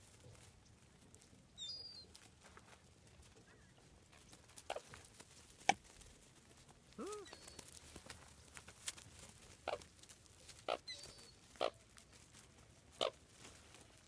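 A flock of American coots at close range giving short, clipped calls, spaced a second or so apart through the second half, with one longer call that rises and falls in pitch about seven seconds in. A brief high chirp comes near the start.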